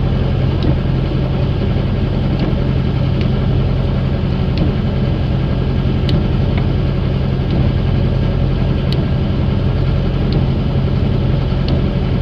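The engine of a motorized outrigger fishing boat (bangka) running steadily under way, a loud, even low drone.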